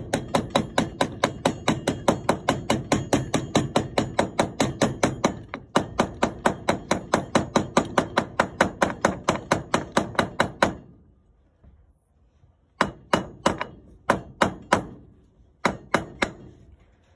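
Hammer lightly tapping a socket against the outer race of a new sealed ball bearing, driving it down into a mower blade spindle housing: a quick, even run of metal-on-metal taps, about five a second, for some ten seconds with one brief pause, then stopping. A few single taps follow near the end.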